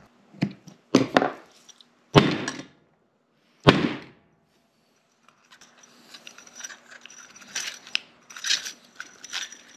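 Greasy metal parts of a linear actuator's gear housing knocked against a wooden workbench: four sharp knocks in the first four seconds, then a run of small clicks and clatter as the parts are handled and taken apart.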